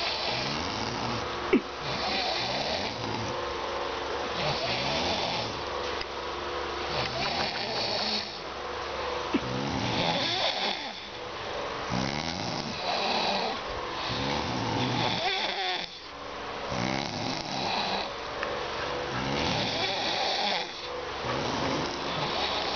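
Two sleepers snoring in alternation: one gives a pitched, rattling snore, the other a hissing breath, each about every two and a half seconds.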